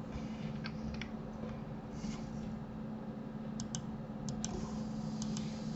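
Computer mouse clicking: a handful of sharp clicks, several in quick press-and-release pairs, most of them in the second half, over a steady low electrical hum.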